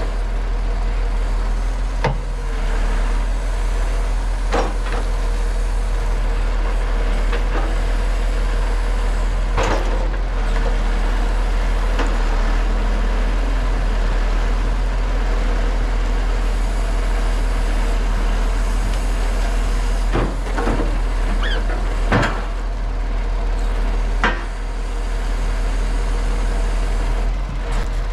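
A timber truck's engine runs steadily while logs are loaded, with several sharp wooden knocks scattered through it as logs are set down.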